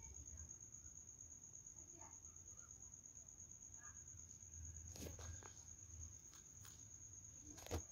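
Near silence: a faint, steady, high-pitched pulsing whine, with a few faint clicks about five seconds in and near the end.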